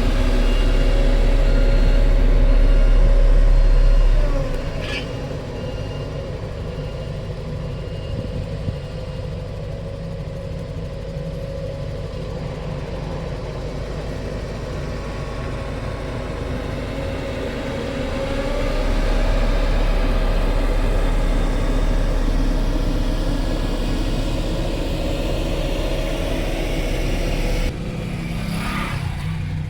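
Engines of heavy vehicles or construction machinery running steadily with a low rumble. The drone swells louder twice and drops abruptly near the end.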